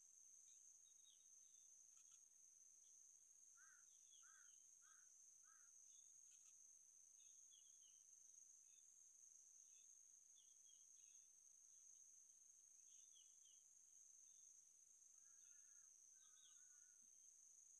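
Near silence: a faint, steady insect drone with scattered small chirps. A bird gives four short rising calls about four seconds in and a brief trilling call near the end.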